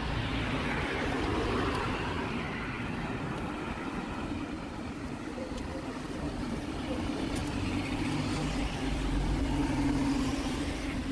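A steady engine rumble with a constant low hum, under a wash of outdoor background noise.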